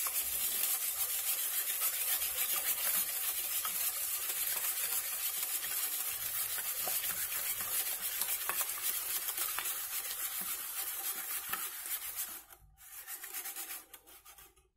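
Wire balloon whisk beating two eggs by hand in a stainless steel bowl until frothy: fast, steady scraping strokes of the wires against the metal. The whisking stops about twelve seconds in, followed by a few fainter strokes.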